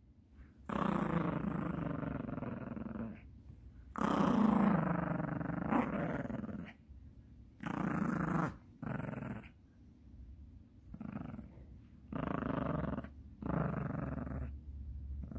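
Yorkshire terrier growling in a run of long and short growls while tugging on a plush toy held in a person's hand.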